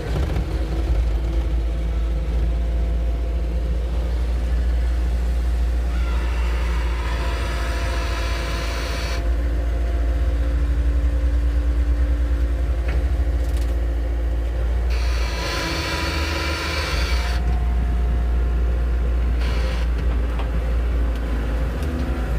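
Caterpillar 262C skid steer loader's diesel engine running steadily with a deep rumble. Twice a louder hiss comes in for a few seconds and then drops away.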